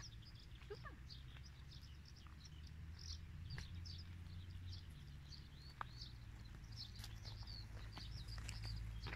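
Songbirds chirping and singing continuously over a low, steady rumble, with a few faint clicks scattered through.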